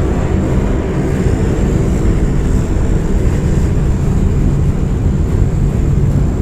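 Airplane engines droning steadily as heard inside the cabin in flight, with a thin high whine held over the low rumble.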